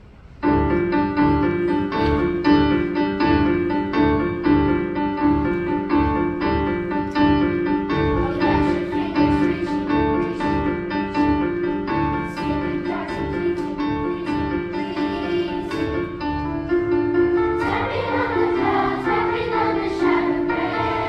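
Children's school chorus singing with piano accompaniment. The piano comes in about half a second in, playing repeated chords to a steady beat, and the voices grow stronger near the end.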